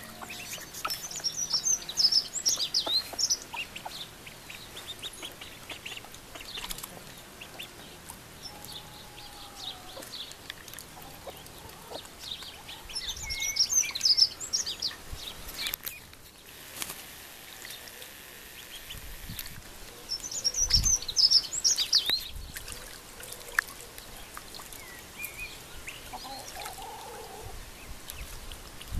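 Ducklings peeping, with bursts of rapid high chirping that come back every several seconds and scattered single peeps in between.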